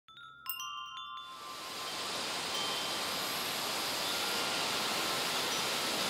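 A few wind-chime tones struck one after another in the first second, ringing on briefly. Then a steady rushing noise rises and holds.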